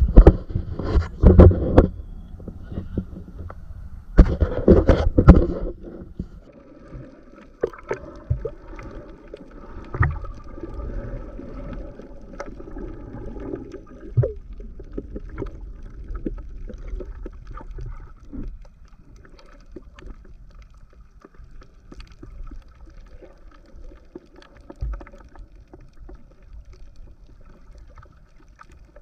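Muffled water sound picked up by a GoPro action camera in its waterproof housing while swimming underwater: a low wash of water with scattered small clicks and a faint steady hum. Two loud bursts of noise come in the first six seconds.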